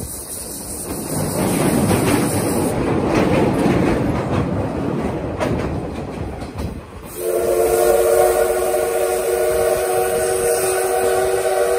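Rattling running noise of a steam-hauled train heard from an open coach window, then about seven seconds in the steam locomotive's whistle sounds a long, steady note of several tones that is still going at the end.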